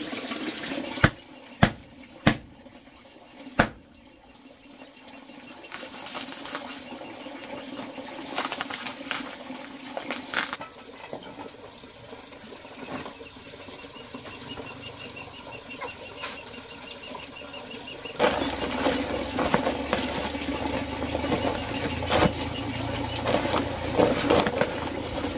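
Dry sand and cement being worked by hand: a few sharp knocks of a metal tool near the start, then scraping and the rushing hiss of dry cement powder pouring from a bag, denser and louder toward the end.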